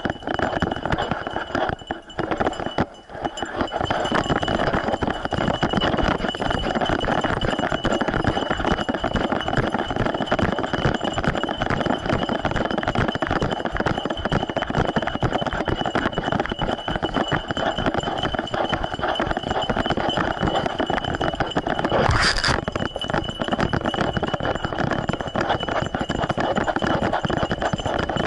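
Continuous jostling and rattling of an action camera strapped to a running dog, with the dog's quick footfalls on a dirt trail. It is patchier for the first few seconds, then steady, with one brief sharp noise about three-quarters of the way through.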